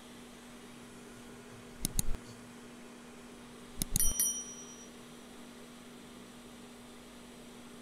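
Subscribe-button animation sound effects: two quick mouse clicks about two seconds in, then more clicks and a short bell ding about four seconds in that rings out briefly. A steady low hum runs underneath.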